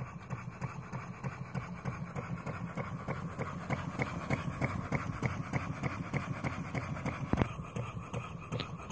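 Model vertical single-cylinder steam engine running under steam, its exhaust chuffing in a quick, even rhythm over a steady high hiss. There is one louder knock about seven seconds in.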